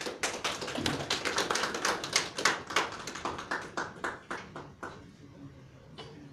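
A small audience clapping by hand, a round of applause that thins out to a few last claps and stops about five seconds in.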